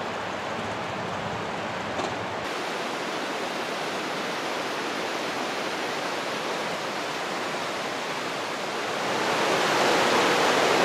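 Mountain river rushing over rocks: a steady wash of white water that grows louder near the end.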